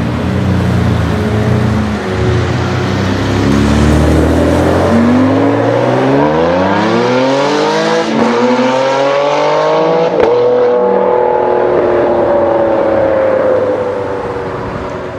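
Ferrari 599 GTO's V12 engine running at low revs, then revving up in a long rising pull from about four seconds in. There is a brief break near the middle and a short click a couple of seconds later, then the engine note holds high and slowly falls before fading out at the end.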